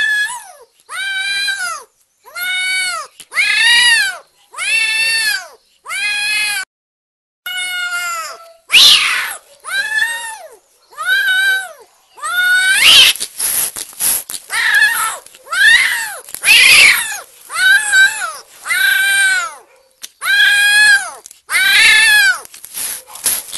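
Kitten meowing loudly over and over, about one high-pitched meow a second, each call rising and then falling in pitch, with a brief pause about seven seconds in.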